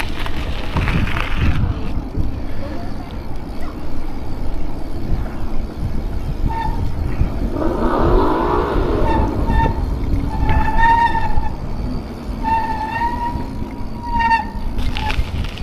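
Wind buffeting the microphone of a chest-mounted camera on a moving BMX bike, a steady low rumble. From about the middle to near the end come several short high-pitched held tones.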